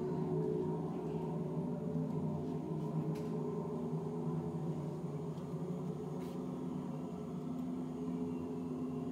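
Ambient background music: a low, sustained drone of held tones.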